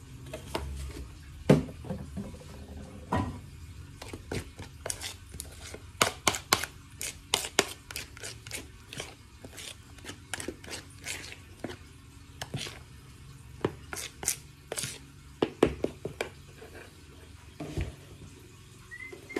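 Metal utensil clinking and scraping against a ceramic bowl as pancake batter is stirred by hand: quick irregular taps, thickest through the middle.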